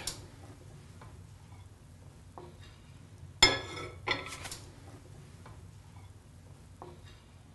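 A ceramic plate set down on a gas stove's cast-iron grate with one sharp clink about three and a half seconds in, then a smaller knock as the pan comes over it; otherwise only a few faint ticks.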